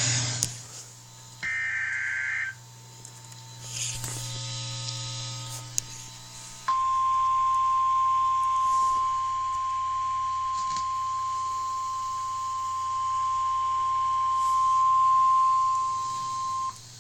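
Emergency Alert System tornado warning from NOAA Weather Radio: a roughly one-second burst of SAME digital header data about a second and a half in, then the 1050 Hz warning alarm tone, a single steady tone held for about ten seconds that cuts off suddenly. A low hum sits under it.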